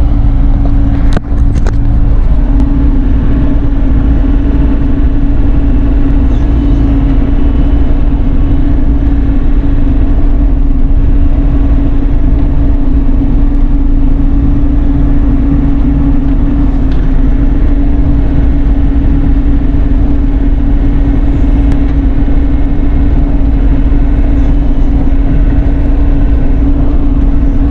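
Bobcat E42 mini excavator's diesel engine running steadily under load, a constant drone over a heavy low rumble.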